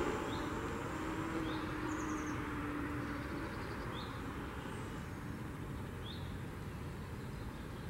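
Steady outdoor background noise of distant traffic, with a low vehicle hum fading away in the first few seconds. A small bird gives four short high chirps scattered through it.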